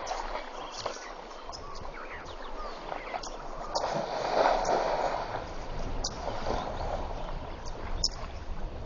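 Water splashing and sloshing as an African elephant swims and rolls, almost fully submerged, in a waterhole. A low rumble underneath grows stronger in the last few seconds.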